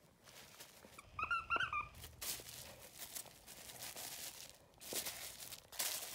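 A squeaky toy squeaks in a quick run of high, wavering squeaks about a second in, followed by rustling of bedsheets.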